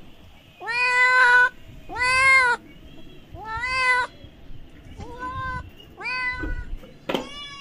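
A kitten meowing over and over, six calls about a second apart, the later ones quieter: a kitten crying.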